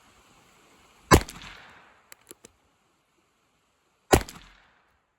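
Two gunshots from a Heritage Rough Rider .22 revolver carbine firing .22 LR Stinger rounds, about three seconds apart, each a sharp crack with a short echo. A few faint clicks come between the shots.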